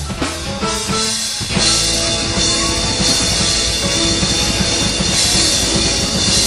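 Live rock band playing an instrumental break, drum kit to the fore, the drumming growing fuller with a wash of cymbals about a second and a half in.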